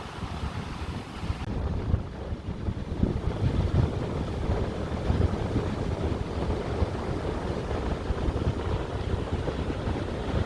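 Wind buffeting the microphone by the sea, with waves and surf underneath; the gusty rumble grows louder about two seconds in.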